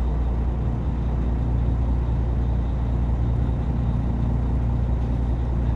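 A small fishing boat's engine running steadily with a low, even drone.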